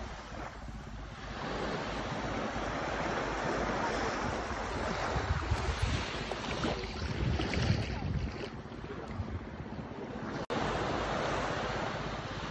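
Small waves washing up onto a sandy beach in a steady surf wash, with wind buffeting the microphone in uneven low rumbles. The sound cuts out for an instant near the end.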